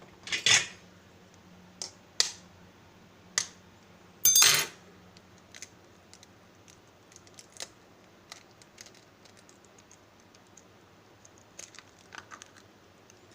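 An egg being cracked on the built-in egg cracker of a plastic microwave egg poacher, with the plastic parts handled: a few sharp taps and clacks, loudest about half a second and four and a half seconds in, then faint small clicks.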